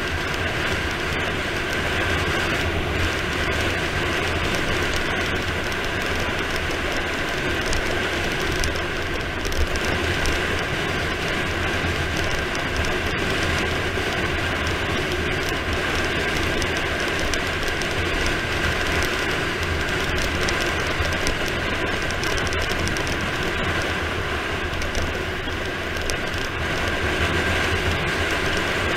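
Steady wind rush over the camera microphone with tyre noise on asphalt from a bicycle coasting fast down a mountain road.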